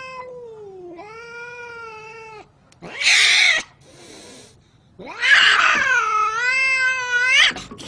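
Domestic cat yowling: long, drawn-out moaning calls that slide down and up in pitch, a short harsh, noisy cry about three seconds in, then the loudest yowl from about five seconds in, lasting over two seconds.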